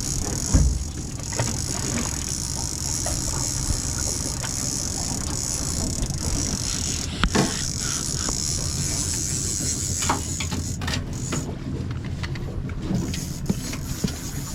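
Boat engine running steadily under a constant hiss of wind and water, with a few short clicks and knocks scattered through.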